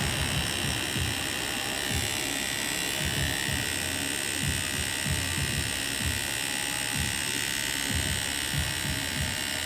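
Electric tattoo machine buzzing steadily as the needle works white highlights into a forearm tattoo.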